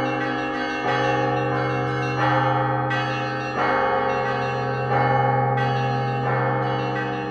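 Russian Orthodox church bells of cast bronze ringing a peal: bells struck about once a second, each strike's tones ringing on into the next, over the steady deep hum of a large bell.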